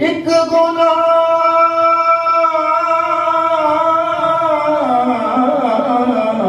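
A man singing a naat, holding one long note for about four seconds and then sliding down in pitch near the end.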